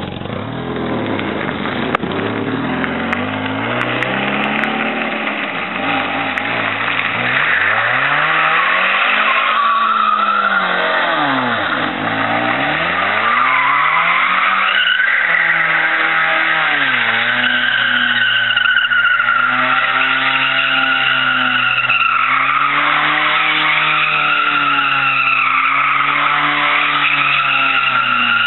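Mazda Miata's four-cylinder engine revving, its pitch sweeping up and down a few times, then held high and wavering as the tires spin in a burnout, squealing over the engine note.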